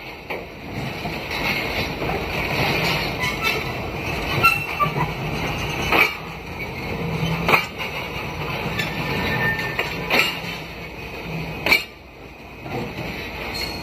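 Pakistan Railways passenger coaches rolling slowly past on the track, a steady rumble of steel wheels on rail broken by a few sharp clacks, some in pairs about a second and a half apart, as the wheels cross rail joints.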